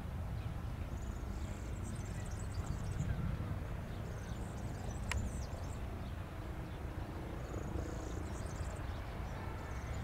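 Low rumble of wind on the microphone, with small birds chirping now and then in short high bursts and a single sharp click about five seconds in.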